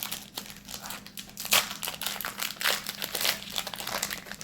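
Foil booster-pack wrapper crinkling as it is handled, a dense run of irregular crackles.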